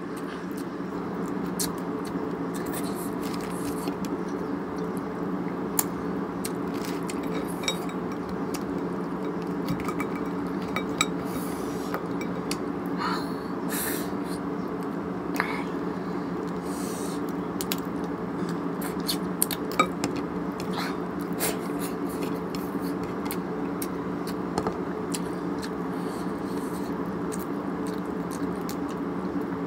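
Crab shells being cracked and picked apart by hand over a plate, with scattered small cracks, clicks and occasional clinks against the dishes, a few sharper ones standing out. Under it runs a steady low hum.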